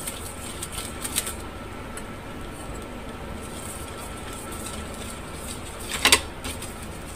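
Light scraping and brushing on a tawa (flat griddle) as oil is spread over a paratha cooking on it, over a steady low hum. A few faint clicks come about a second in, and a louder short scrape or clatter of the utensil against the pan about six seconds in.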